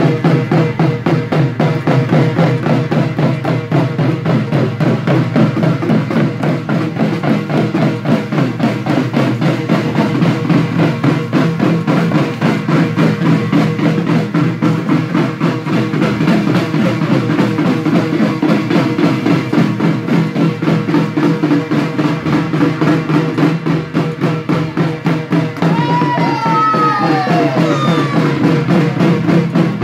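Music driven by a fast, steady drum beat, loud and unbroken throughout. Near the end a few falling, whistle-like tones sound over it.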